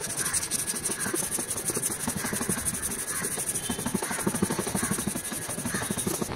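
Hand wet-sanding of a painted plastic car bumper with an abrasive sanding sponge: quick, steady back-and-forth rubbing strokes with a gritty hiss, scuffing the old paint before a repaint.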